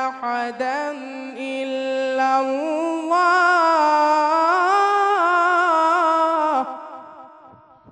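A young male reciter chanting the Quran in long, melodic drawn-out notes, one voice with wavering ornaments. About three seconds in the held note climbs higher and louder, then it breaks off near the end, leaving an echo that fades away.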